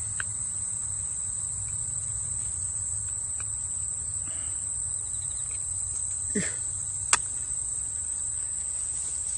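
Steady high-pitched chorus of insects calling from the grass, over a faint low rumble. A short falling sound comes about six seconds in, and a sharp click about a second later.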